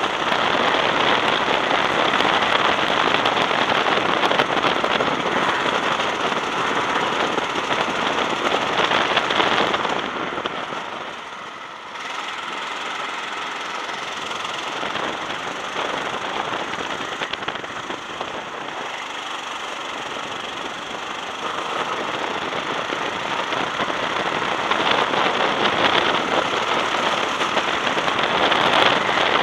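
Racing go-kart engine running hard on the track, its rough, crackling note falling away about ten seconds in and then building back up.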